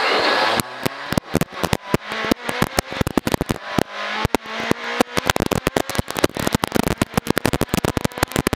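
Inside the cabin of a Honda Civic rally car pulling away hard on gravel: the engine's revs climb and cut off sharply about half a second in at a gear change. After that, loose gravel and stones clatter steadily against the underside and wheel arches over the engine noise.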